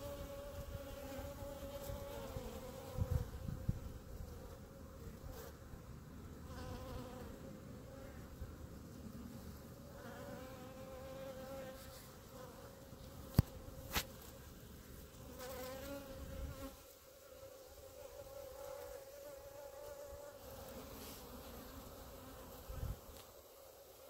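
Honeybees buzzing in a steady, slightly wavering hum from a ball of worker bees clustered on the grass, the clump that forms when workers ball a queen. Two sharp clicks come about halfway through, with a few low bumps early on and near the end.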